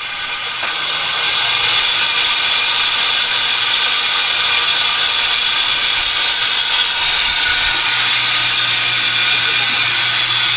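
Juki sewing machine motor running steadily with the abnormal motor noise that needs repair: a high whine over a low hum, building up over about the first second.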